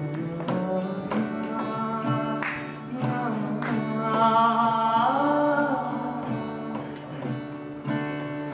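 Acoustic guitar strummed under a male voice singing a slow melody, the singing loudest about four to six seconds in.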